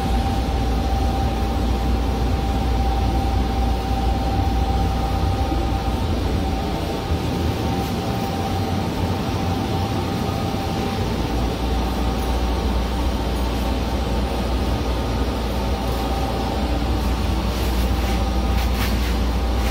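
Automated airport people-mover tram running along its guideway: a steady low rumble with a constant motor whine, the rumble easing for a few seconds midway. A few sharp clicks near the end.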